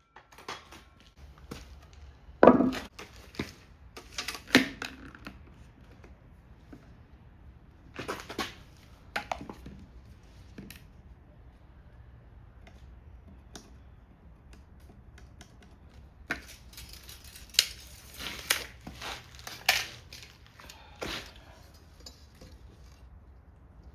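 Timber and tools being handled at a workbench: irregular wooden knocks and clicks with some scraping, the loudest knock a couple of seconds in and a cluster of sharper knocks in the last third.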